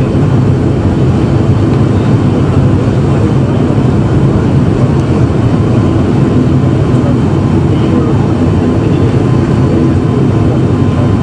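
Jet airliner engines running with a loud, steady roar.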